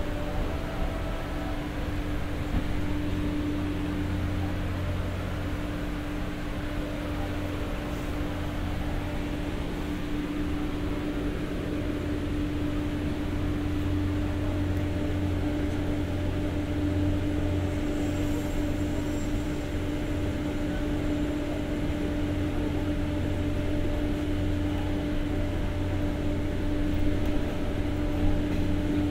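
Inside a 203-series passenger car fitted with its own power generator: the generator's steady drone with a constant hum, mixed with the train's running noise.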